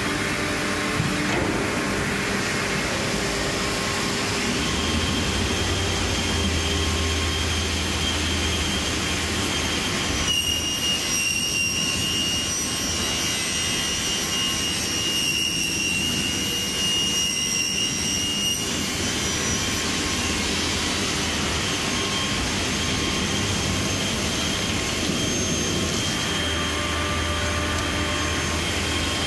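HOMAG SAWTEQ B-300 panel dividing saw running: a loud, steady machine noise with a low hum that comes and goes. For several seconds in the middle, high steady whining tones sound over it.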